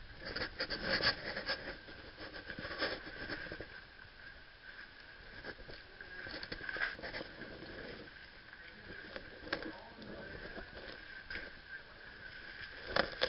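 Muffled footsteps and gear rustling of airsoft players moving through a hallway, with scattered sharp clicks and knocks, loudest about a second in and near the end, over a faint steady high tone.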